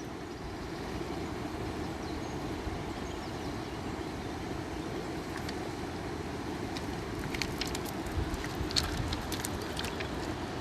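Steady outdoor background noise, a low rushing hum, with a scatter of light clicks and ticks from about seven seconds in.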